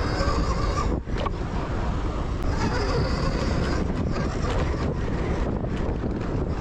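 Wind buffeting the microphone while a Zero FX electric dirt bike is ridden offroad, with a high thin whine coming in twice.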